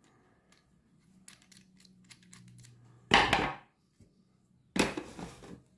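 Gloved hands handling a metal honing guide: small metal clicks and taps, then two louder, noisy handling sounds lasting about half a second each, a little after three seconds in and near the end.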